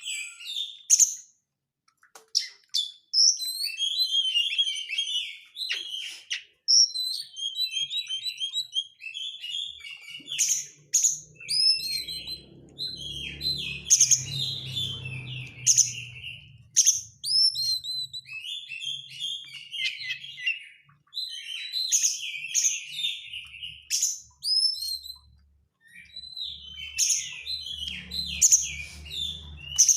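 Oriental magpie-robin singing a long, fast run of varied whistled notes mixed with harsh, close-packed chattering.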